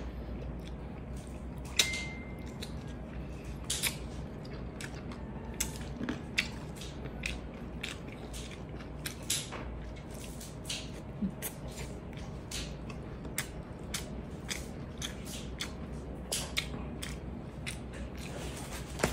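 Close-miked chewing and wet mouth sounds of a person eating raw-fish kinilaw with rice, with many short smacks and clicks over a low steady hum. About two seconds in, one sharp tap, the loudest sound, is followed by a short ring.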